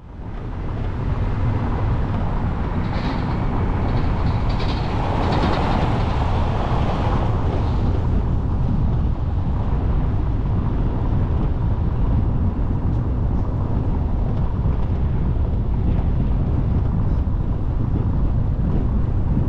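Car driving along a brick-paved street: a steady rumble of road and tyre noise with wind on the microphone, fading in over the first second.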